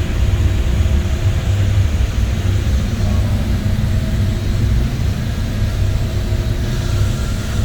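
Steady low machinery rumble with a faint even hum above it.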